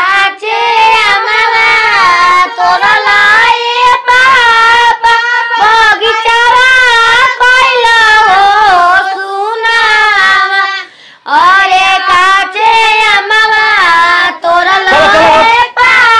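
Women singing a Bhojpuri folk wedding song for the chumavan ritual in high, wavering voices, without instruments, breaking off briefly about eleven seconds in.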